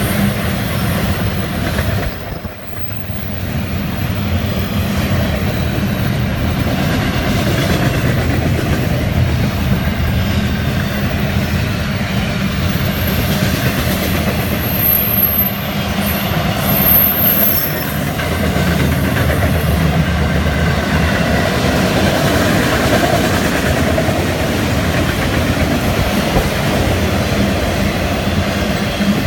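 Freight train cars rolling past at close range: double-stack container well cars, then enclosed autorack cars, with a steady rumble and clatter of steel wheels on the rails. A few brief high squeals come about halfway through.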